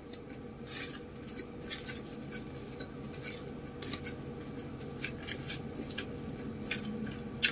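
Dry sheets of nori seaweed crackling as they are handled by hand: a string of short, irregular, crisp crackles.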